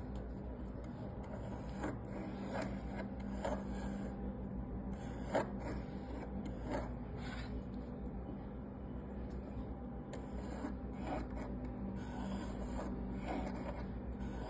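A plastic drafting compass handled and adjusted with scattered small clicks and taps, and its lead scratching arcs onto a wooden disc in intermittent light scrapes, over a steady low hum.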